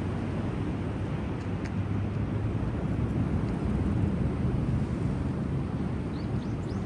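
Steady low rumble of surf and wind at the shore, with a few faint high chirps near the end.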